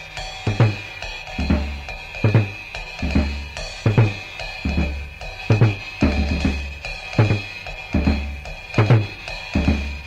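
Instrumental rock passage without vocals: a drum kit plays a steady beat, strokes a little under a second apart, over low bass notes and a held high note.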